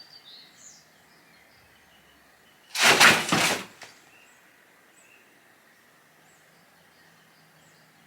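Faint bird chirps, then a loud rushing whoosh lasting about a second, a little under three seconds in.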